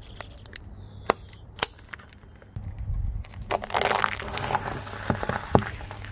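Car tyre rolling over and crushing soft and frozen things on asphalt: two sharp cracks about a second in, then a longer crackling crunch from about three and a half seconds as ice lollies and ice cream are flattened, with a few sharper cracks near the end, over a low steady rumble.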